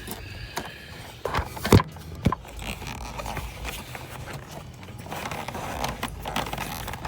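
Hands working the LED headlight bulb's plastic connector and wiring in the headlight housing: a few sharp clicks and knocks about one to two seconds in, the middle one the loudest, over a low steady rumble.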